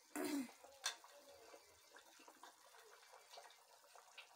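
Thick curry gravy boiling in an open pressure cooker, bubbling and popping faintly. A louder, noisy burst comes in the first half-second, and a sharp click comes just before one second.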